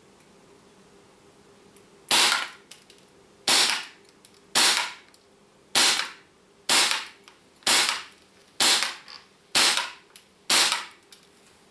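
Tokyo Marui M&P9L Performance Center gas blowback airsoft pistol firing nine single shots, roughly one a second, starting about two seconds in. Each shot is a sharp crack as the blowback slide cycles.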